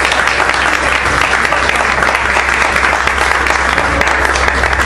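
Audience applauding, a dense, steady patter of hand claps.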